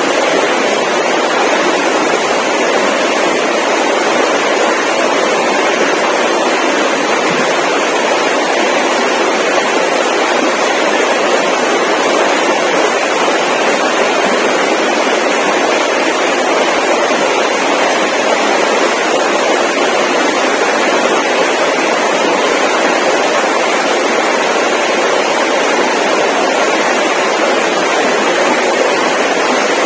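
A loud, steady rushing noise that does not change, with no distinct events in it.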